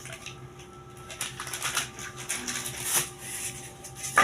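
Packing material being handled while a box is unpacked: thermocol (polystyrene) sheets and plastic making scattered rustles and clicks, with sharper knocks about three seconds in and at the very end.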